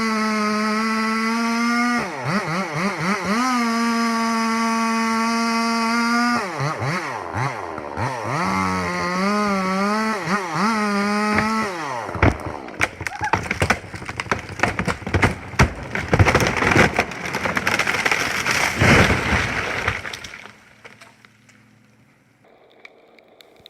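Chainsaw running at high revs, its pitch dipping and recovering several times as the throttle and load change. About halfway through it gives way to several seconds of loud, dense cracking and crashing of wood, which dies away near the end.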